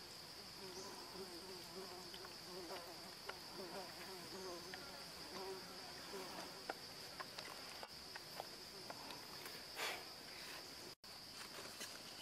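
Steady, high-pitched drone of a forest insect chorus, with a fly buzzing close by through the first half and scattered small clicks and taps from handling fish on bamboo slats. The sound cuts out for an instant near the end.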